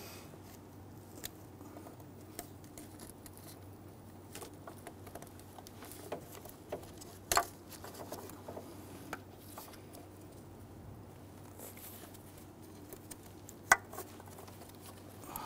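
Gloved hands handling parts around an engine's fuel rail and injectors, making scattered light clicks and taps, with two sharper clicks about seven and fourteen seconds in. A faint steady low hum runs underneath.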